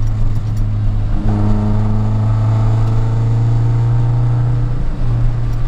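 Nissan 240SX S13's 2.4-litre four-cylinder engine through a loud aftermarket cat-back exhaust, pulling steadily at cruise. The drone breaks briefly about a second in and again near the end, like gear changes.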